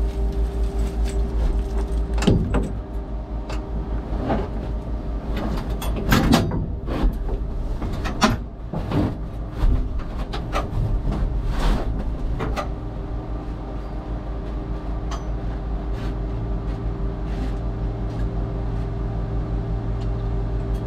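Turbocharged Chevy S-10 land-speed race truck's engine idling steadily while stopped, with scattered clicks and knocks from inside the cockpit, a cluster of them about six seconds in.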